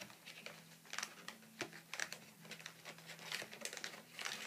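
Plastic toy packaging and twist ties being handled and pulled off: scattered faint rustles, crinkles and small clicks.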